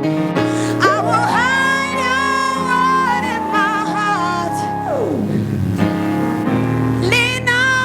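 Gospel worship music: a singer holds long, wavering notes over sustained keyboard chords, with a downward pitch slide about halfway through.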